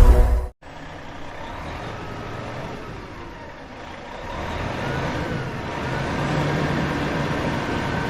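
Vehicle sound effect of a van driving: a steady engine drone with gently rising and falling pitch, growing louder about four seconds in. A loud intro sound cuts off half a second in, just before the engine starts.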